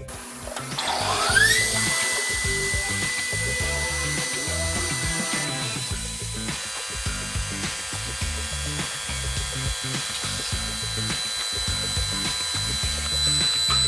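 High-speed spindle of a K902 CNC lock-milling machine winding up with a rising whine about a second in, then holding a steady high whine as it mills aluminium profile. The pitch of the whine shifts about five and a half seconds in.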